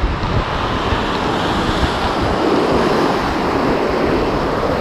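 Sea surf washing and breaking against shore rocks, with wind buffeting the microphone.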